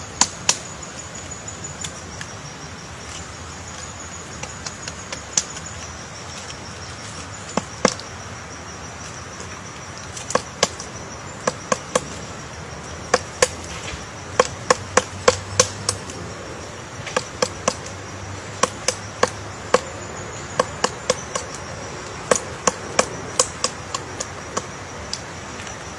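Woodpecker pecking at wood: sharp single taps, a few per second in irregular clusters with pauses between them, not a fast drumming roll. A steady high-pitched hum runs underneath.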